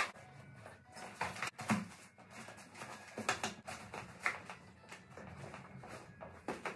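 Rustling and irregular soft knocks of shoes and clothes being handled and set into an open suitcase.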